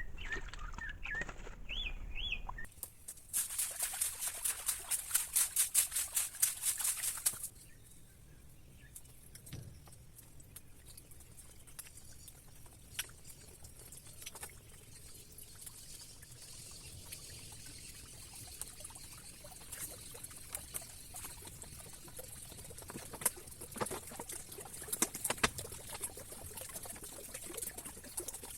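Bird bathing in a shallow water hole: a few short whistled calls, then about four seconds of rapid fluttering splashes as it beats its wings in the water. Quieter scattered drips, clicks and small chirps follow, with a few sharper ticks near the end.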